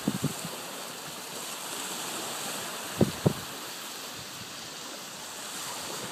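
Small waves washing onto a sand and pebble beach, with wind on the microphone. A few short thumps come at the start and twice about three seconds in.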